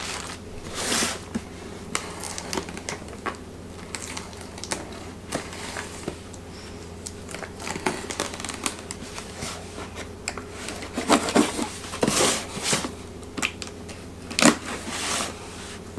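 Hands handling packaging and welder accessories: scattered light clicks and knocks with brief rustling of plastic bags and cardboard, loudest in a cluster near the last third and once more shortly before the end. A steady low hum runs underneath.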